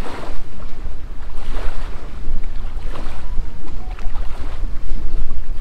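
Wind buffeting the microphone: a loud, low rumble that swells and drops in gusts.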